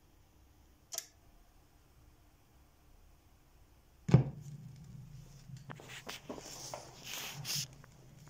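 A click about a second in, then about four seconds in the turntable's stylus drops onto the spinning vinyl LP with a thump. After that come the low hum, crackle and hiss of the stylus riding the silent lead-in groove before the music starts.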